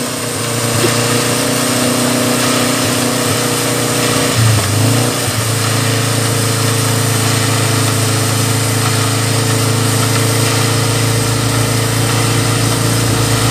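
Off-road 4x4 jeep's engine running steadily at low revs, with a brief change in pitch about four to five seconds in as the throttle shifts.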